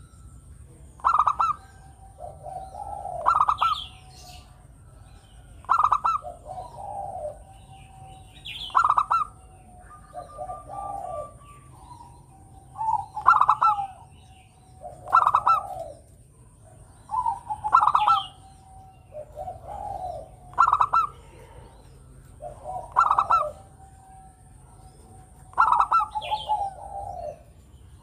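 Zebra dove (perkutut) singing its cooing song: a phrase repeated about every two to two and a half seconds, each a short, sharp higher note running into a lower, rolling coo. A faint steady high whine sits behind it.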